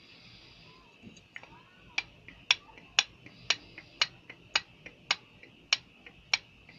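Sharp metallic knocks at an even rhythm of about two a second, slowing slightly, with fainter clicks between them. They start about two seconds in, over a faint steady hiss. This is the water pump knock on a Great Wall 491QE engine, a knock easily confused with timing-chain or piston knock.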